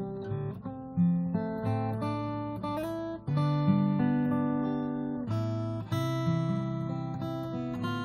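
Acoustic guitar music: strummed chords that ring on, with a new chord every second or two.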